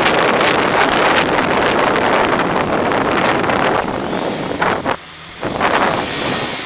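Wind rushing over the microphone of a moving motorcycle, a loud steady hiss that drops out briefly about five seconds in.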